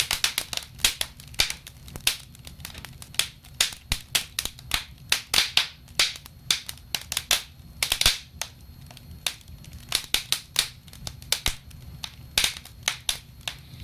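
Wood campfire crackling: irregular sharp pops and snaps, several a second, over a low steady rumble of the burning fire.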